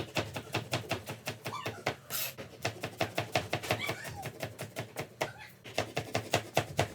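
Kitchen knife chopping rolled-up fresh spinach leaves on a cutting board: a steady run of quick strokes, about four to five a second.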